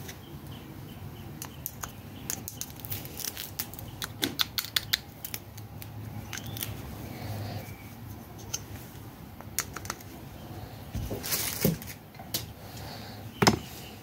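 Handling noises from a plastic pipe-freezing head and paper towel worked by hand: a run of small clicks and rustles, with a sharper knock near the end.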